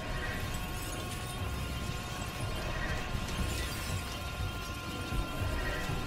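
Sustained energy-beam sound effect: a dense crackle over a low rumble, with steady held tones and some music underneath.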